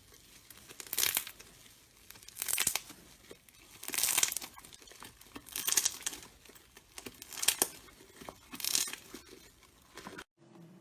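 Slime being worked by hand in an ASMR session: six short noisy bursts, about one every second and a half.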